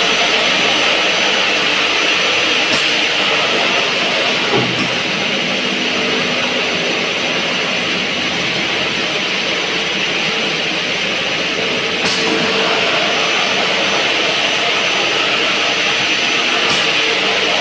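Haffner DGS 187 double mitre saw running: a loud, steady whirring of its motors and spinning blades, with four short sharp clicks scattered through.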